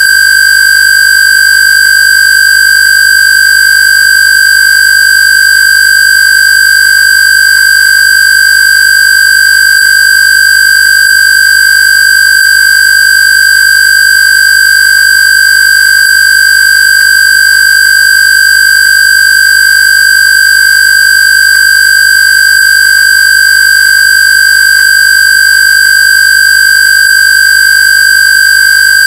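A loud, steady, high-pitched electronic square-wave tone held at one pitch, with buzzy overtones. It is a Rife/AWG frequency tone meant for shingles.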